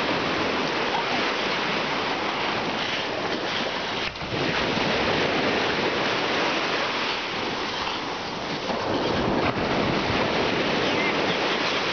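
Steady rushing noise of ocean surf on the shore, with wind on the microphone.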